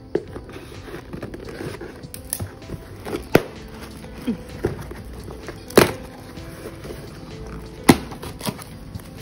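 Cardboard parcel being cut open with scissors and its taped flaps pulled back: a string of sharp snips and cracks of card and tape, three of them louder than the rest, over background music.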